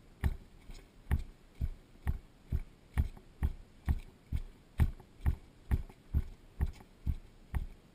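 Marching footsteps of firefighters in boots on pavement: steady low thuds, a little over two a second.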